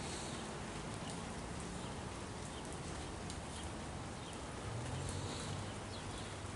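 Quiet outdoor ambience: a steady, even hiss with a few faint, short bird chirps scattered through it.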